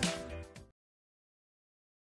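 Background music fading out in the first moment, then dead silence.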